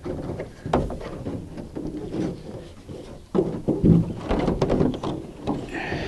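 Plastic air conditioner shroud being set and shifted on the rooftop Dometic Penguin 2 unit: irregular knocks, thuds and scraping of hollow plastic against the base as the holes are lined up, the loudest thumps about three and a half to four seconds in.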